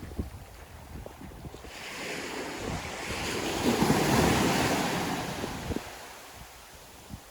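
Ocean wave breaking and washing up the beach. It swells about two seconds in, is loudest in the middle, then fades away.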